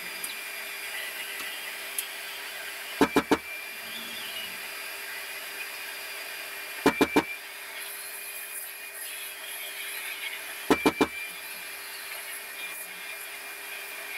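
Three quick electronic beeps, repeating about every four seconds, from the CNC machine's control over a steady machine hum.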